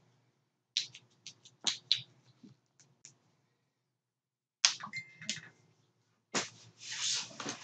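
Scattered sharp clicks and light taps from a person walking and filming with a handheld camera in an empty room, with a short rustle about seven seconds in.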